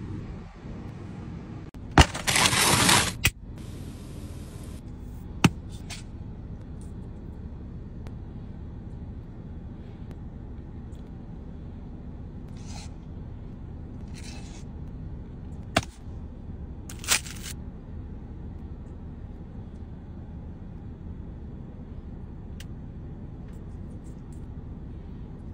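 Steady low hum inside a car cabin, with occasional food-handling noises. A loud rustle lasting about a second comes about two seconds in, followed later by a few sharp clicks and short, fainter rustles.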